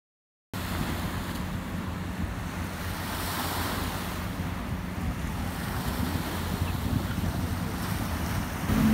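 Wind buffeting the microphone over water washing past a ferry, with the boat's engine droning low and steady underneath; it begins suddenly about half a second in.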